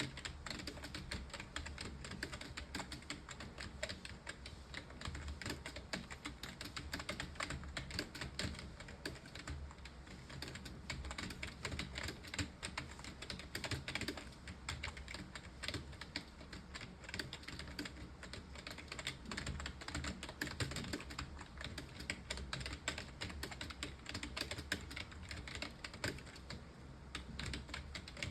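Continuous fast typing on a computer keyboard, many key clicks a second without a pause.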